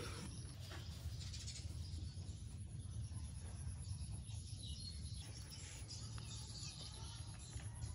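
Outdoor ambience: faint bird chirps and insect noise over a low steady rumble.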